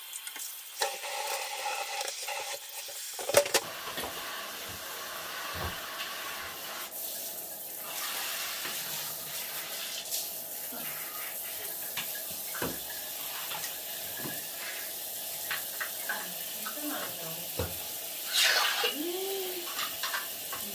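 Running water spreading across a tiled bathroom floor and flowing down a floor drain, a steady hiss with scattered small clicks and splashes. Near the end there is a short burst of sharp clinks as a stainless steel drain grate is set back in place.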